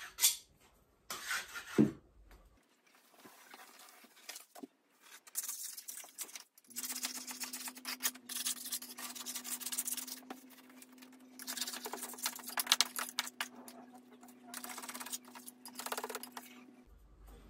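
Damp wallpaper backing paper being scraped and pulled off a wall: irregular rasping scrapes and tears, busiest in the second half, with a faint steady hum behind them from about seven seconds in.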